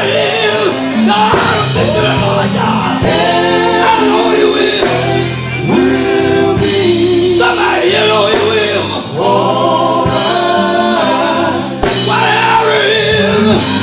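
Live gospel music: a male vocal group singing held notes in harmony over band accompaniment.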